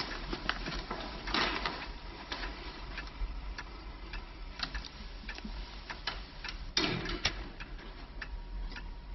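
Uneven ticking clicks, a few a second, over a steady hiss and a faint steady tone.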